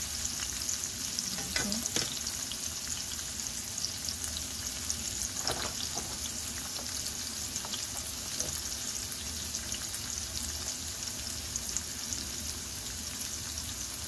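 Chopped onion, garlic and tomato sizzling in oil in a nonstick frying pan, a steady crackling hiss, with a few brief scrapes of a plastic slotted spatula against the pan.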